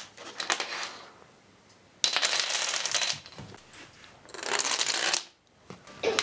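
Dominoes toppling and clattering on a wooden floor in separate runs: a clatter dying away at the start, a sudden burst about two seconds in lasting about a second, and another shorter run a little after four seconds.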